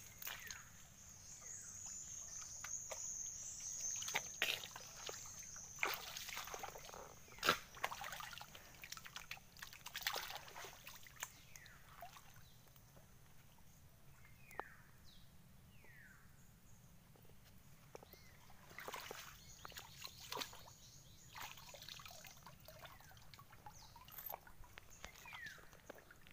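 Shallow muddy water sloshing and splashing as hands grope through it for shrimp, in scattered irregular splashes and drips. A steady high whine runs underneath and fades out about two-thirds of the way through.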